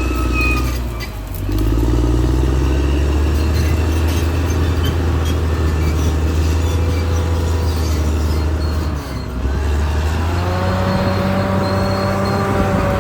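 Caterpillar D6R XL bulldozer's diesel engine running steadily, with brief dips about a second in and again about nine seconds in. A steady higher whine joins about ten seconds in.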